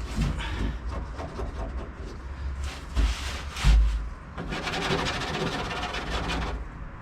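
Tissue rubbing softened soundproofing residue off a bare steel car floorpan in quick scraping strokes, heaviest in the last couple of seconds. There are a couple of dull bumps about three to four seconds in.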